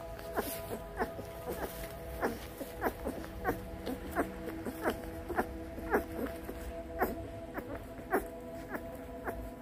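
A litter of 18-day-old Lycan Shepherd puppies suckling at their mother's teats. Wet smacking clicks come irregularly, about three a second.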